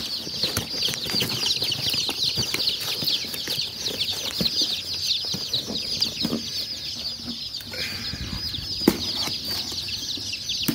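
A box full of baby chicks peeping nonstop, a dense chorus of short, falling cheeps. Cardboard rustles and scrapes as the shipping box flaps are handled, with one sharp knock about nine seconds in.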